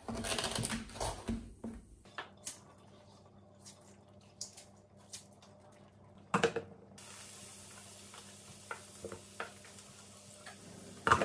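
Kitchen work: scattered clicks and clinks of utensils and dishes, with a louder knock about six seconds in. After that a faint steady hiss sets in.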